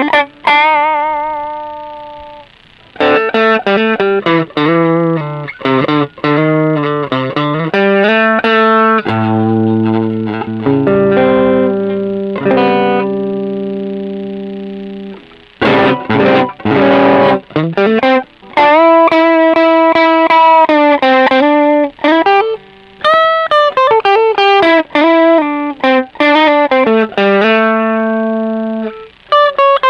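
Electric guitar played through a Caline Green Mamba low-gain overdrive pedal: single-note phrases with bends and vibrato, a few strummed chords just past halfway, and short pauses between phrases.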